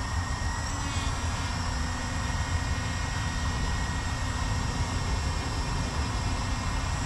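Quadcopter drone hovering close by, its propellers giving a steady high-pitched whine that shifts pitch slightly about a second in, over a steady low rumble.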